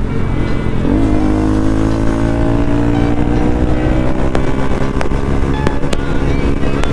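Kawasaki Z900's inline-four engine through its stock exhaust while riding, its note rising slowly and steadily as the bike pulls. A few short sharp clicks come in the last few seconds.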